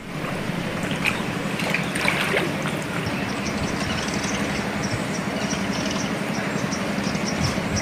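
Steady rush of the fast-flowing, flooded Godavari river.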